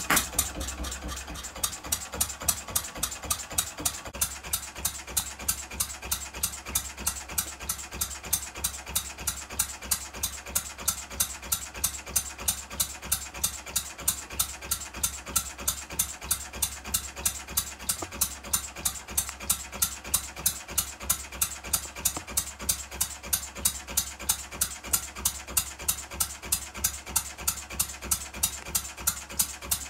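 Single-cylinder vertical A-frame model true diesel engine, burning a kerosene and lamp-oil mix, running steadily with a sharp, fast, even firing beat.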